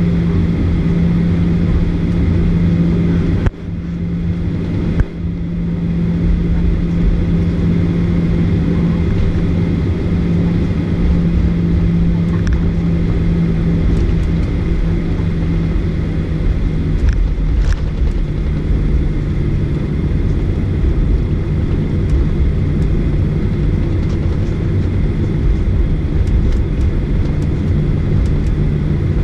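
Jet airliner's engines at taxi power heard inside the cabin: a steady drone with a low hum that drops slightly in pitch a little over halfway through. The sound briefly dips twice a few seconds in.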